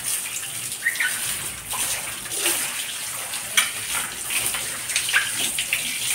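Water from a hose spraying over a wet dog's coat and splattering onto a woven cot and tiled floor, a steady rushing splash with scattered sharper splashes.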